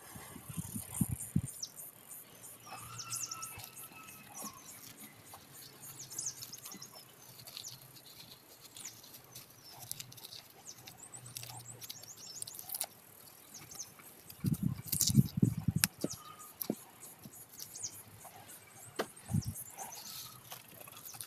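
Hands scraping and rubbing soil and dried roots off taro corms on hard dirt ground: irregular scratching and crackling, with a few dull handling thumps about a second in and again around fifteen seconds in.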